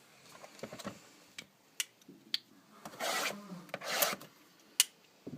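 Trading cards being handled and slid against one another: light clicks and taps, with two brief swishes about three and four seconds in.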